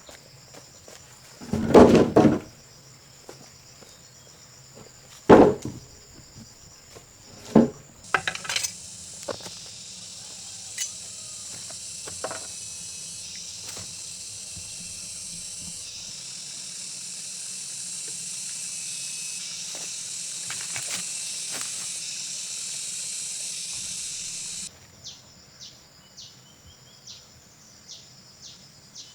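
Three loud knocks, the first a double one, then a steady high insect drone that cuts off suddenly, followed by faint, quick insect chirps.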